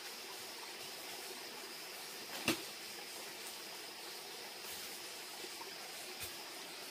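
Steady background hiss under a thin, high, continuous insect drone, broken by one sharp knock about two and a half seconds in and a lighter tap near the end.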